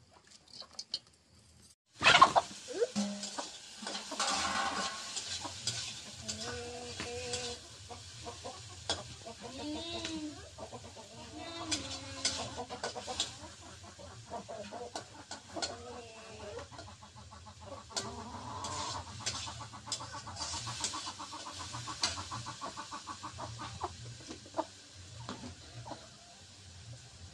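Chickens clucking, with short calls scattered all through, among sharp clinks of a metal ladle stirring in a steel wok over a wood fire.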